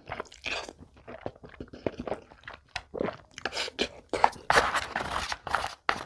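Close-miked chewing and crunching of food in a rapid, irregular run of bites, busier and louder in the second half.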